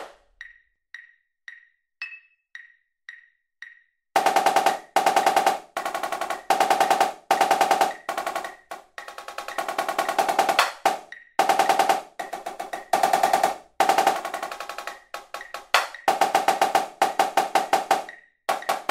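Sampled marching snare drum played from MIDI, running fast, heavily accented rudimental passages with buzzing rolls at 112 beats per minute. For the first four seconds only a metronome click sounds, about twice a second.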